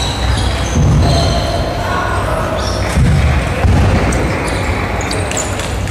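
Table tennis rally: the celluloid ball clicking sharply off the bats and table, with short high squeaks from players' shoes on the wooden floor, echoing in a large hall.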